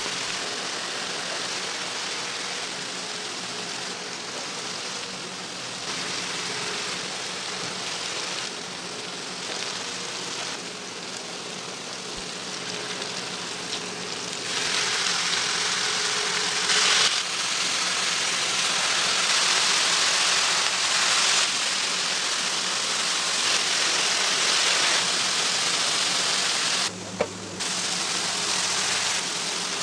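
Ground-beef patties sizzling on a flat-top griddle, a steady hiss of frying fat that grows louder about halfway through, with a brief sharp sound near the end.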